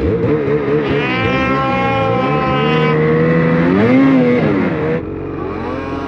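Snowmobile engine running under changing throttle while riding through snow, its pitch rising and falling, climbing to its highest about four seconds in. About a second before the end it drops suddenly to a quieter, steadier engine sound.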